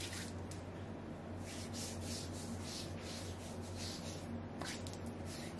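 Hands rubbing body glow oil onto bare skin in repeated swishing strokes, over a low steady hum.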